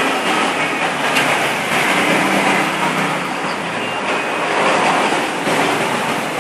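Loud, steady background noise, a mix of rumble and hiss, with a faint click about a second in.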